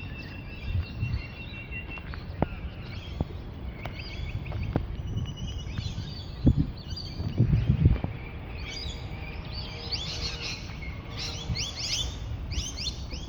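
Wild birds calling and chirping, with a steady whistled note in the first two seconds and a busy run of rapid chirps through the last few seconds. Under them run low thuds and rumble from walking with a handheld camera, heaviest around the middle.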